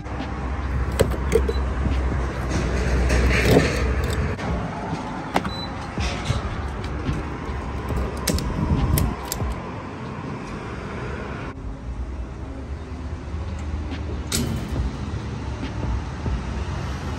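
Refuelling a Ford Transit Connect cargo van at a gas pump. The van runs with a low rumble for the first few seconds. Then the pump nozzle is handled in the filler neck, with scattered clicks and knocks, and the background changes abruptly partway through.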